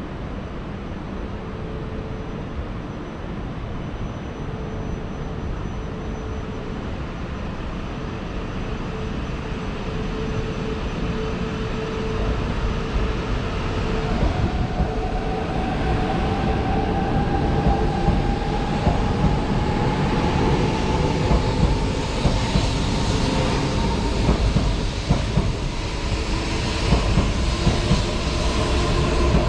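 E4 series MAX double-decker Shinkansen pulling away from the platform: a low rumble with a steady hum at first, then from about halfway a motor whine that rises slowly in pitch and grows louder as the train gathers speed.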